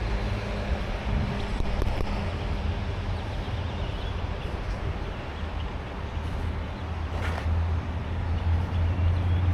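Steady low rumbling hum under outdoor background noise, with a couple of faint clicks.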